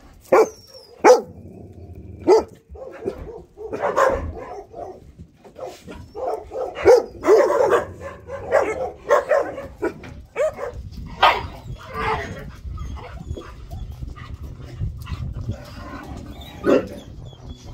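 Several dogs barking and yipping in short, scattered barks while they play and tussle.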